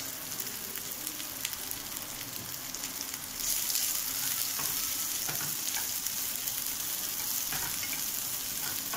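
Sliced onions frying in hot oil in a pan: a steady sizzle that gets louder about three seconds in. A wooden spatula stirs and scrapes through them.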